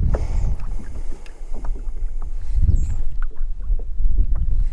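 Wind rumbling on the microphone over small waves slapping and lapping against a plastic fishing kayak's hull, with scattered short splashes and ticks.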